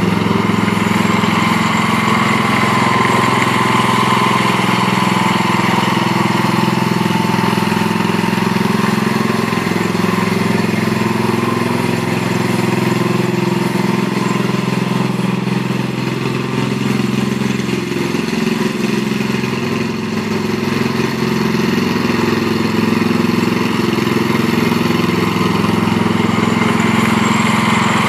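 Snapper rear-engine rider mower's engine running steadily while the mower is driven, dipping slightly in level around the middle as the mower moves away.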